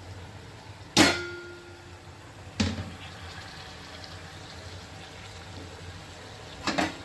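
Three metallic clanks of kitchen utensils against a cooking pot. The first, about a second in, is the loudest and rings briefly; a lighter knock follows and a quick double knock comes near the end, over a low steady background hum.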